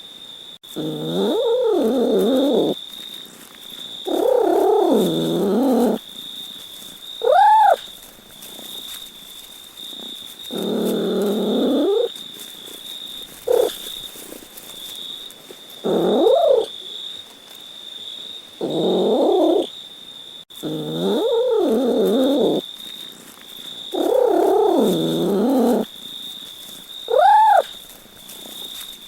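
A cat meowing over and over, one drawn-out meow every two to three seconds, with a couple of short, upward-sliding mews among them.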